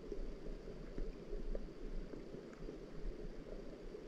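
Steady, muffled water noise, deep and without any bright hiss, with scattered faint ticks.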